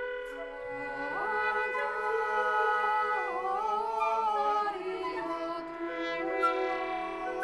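Contemporary chamber music: held wind and brass notes, joined about a second in by a wavering, sliding melodic line that fades out about five seconds in.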